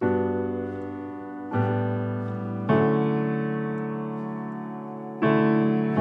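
Background music: slow piano chords, four struck in turn, each ringing out and fading before the next.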